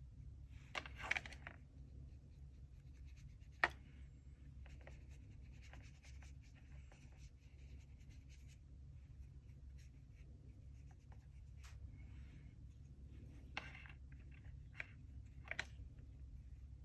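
Faint scratchy strokes of art tools worked across a drawing or painting surface, coming in short irregular bursts, with one sharp tap about three and a half seconds in. A steady low hum runs underneath.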